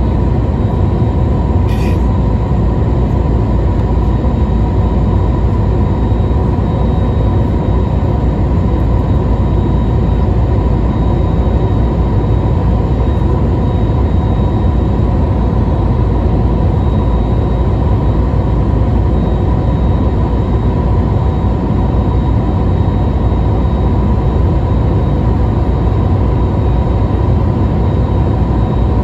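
Airbus A321neo cabin noise from a window seat over the wing: the steady rush of the engines and airflow during the climb, with a steady whine running through it. A faint click about two seconds in.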